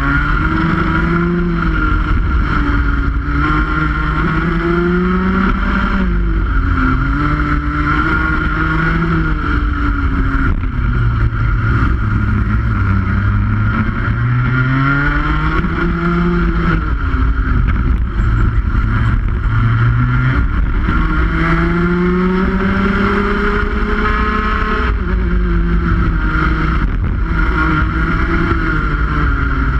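Rotax 125cc two-stroke kart engine at racing speed, revs repeatedly climbing and falling through the lap, with a sharp drop about 25 seconds in.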